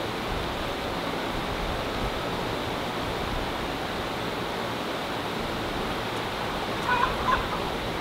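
Caged laying hens giving a couple of short calls about seven seconds in, over a steady rushing noise.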